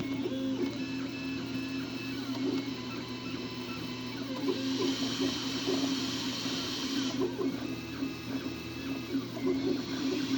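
MakerBot Replicator+ 3D printer at work: its stepper motors sing in short tones that keep jumping in pitch as the print head moves, over a steady hum. A hiss comes in about halfway through, stops, and comes back near the end.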